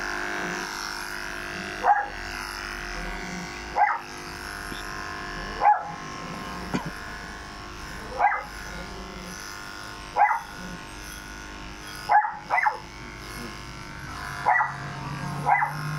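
Corded electric pet clippers running steadily as they shave a dog's coat, while a dog gives short single barks about every two seconds, two of them close together about twelve seconds in.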